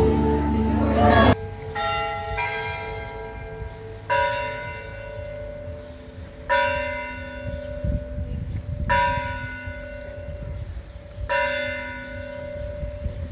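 A large bell tolling slowly, one strike about every two and a half seconds, each ringing on with a long hum.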